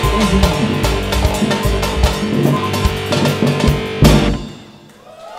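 Live axé band music with heavy drums and a strong beat, ending on a final accented hit about four seconds in. The music then dies away, and faint crowd voices rise near the end.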